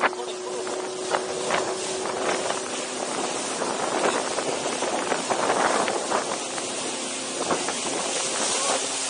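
Speedboat running fast over open water: a steady rush of wind and water spray, with the outboard motor faintly underneath and brief sharp splashes now and then.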